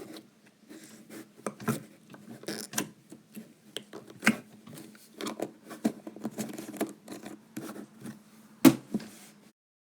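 Slime being squeezed and poked by hand: irregular sticky clicks and pops, the loudest one near the end, before the sound cuts off abruptly.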